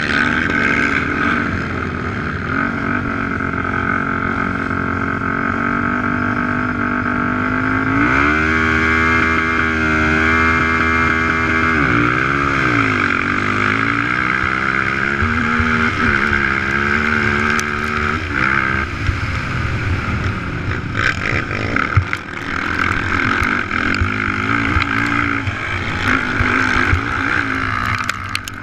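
Racing ATV engine heard from on board the quad, running loud and steady, then revving up and down in pitch from about eight seconds in as it accelerates and shifts down the dirt track.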